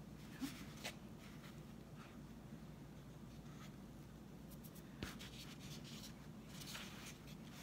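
Faint rubbing and handling noise from hands pressing a felt hat onto a dried gourd and then moving the gourd, with a few soft taps.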